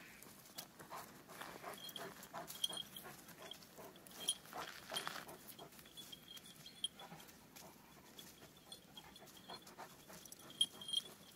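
Kangal shepherd dog panting faintly, a quick run of short breaths.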